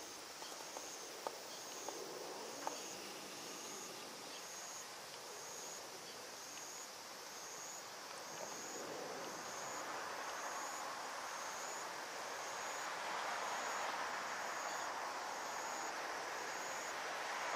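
An insect chirping at a steady pace, a short high chirp a little more than once a second, over a background hiss that grows louder about halfway through. A few faint clicks in the first few seconds.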